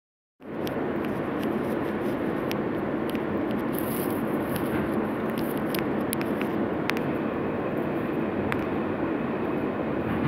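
Steady rumble of a New York City subway car running on the track, heard from inside the car, with scattered faint clicks and squeaks.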